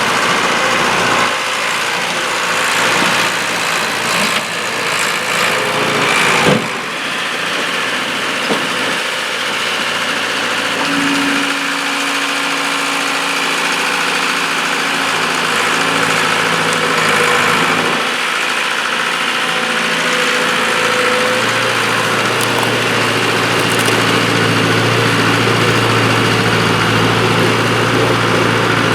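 Bobcat skid-steer loader's engine running steadily while it works, with one sharp knock about six and a half seconds in.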